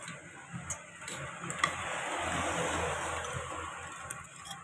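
A metal fork clicking lightly against a ceramic bowl a few times as noodles are twirled, over a background hiss that swells in the middle and fades.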